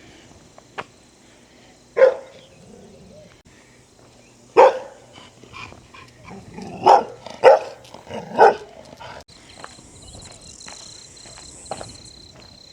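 A dog barking five times, single barks spaced a second or two apart.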